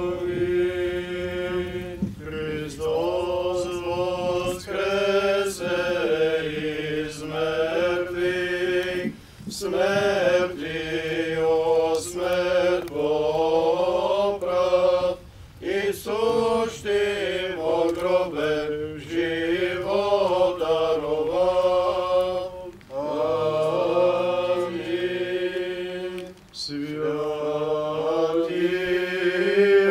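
Orthodox priests chanting a liturgical hymn of the blessing-of-water service, male voices singing in phrases a few seconds long with short breaks for breath between them.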